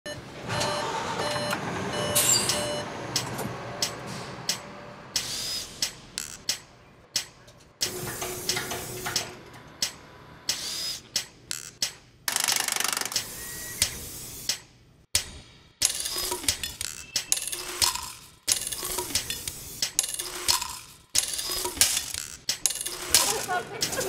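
A string of short bus-garage work sounds: repeated electronic beeps from a bus dashboard in the first couple of seconds, then many sharp clicks, clinks and clanks of tools and metal, with brief bursts of power-tool noise.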